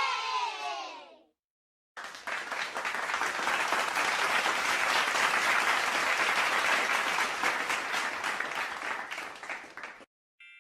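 A crowd applauding: dense clapping starts about two seconds in and runs for about eight seconds, fading out near the end. Before it, the tail end of a cheering crowd dies away, and a short tonal chime comes in just before the end.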